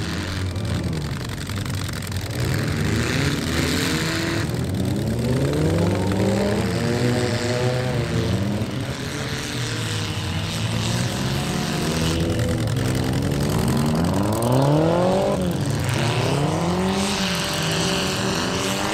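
Engines of several small demolition derby cars revving up and easing off at once, their pitches rising and falling and overlapping throughout.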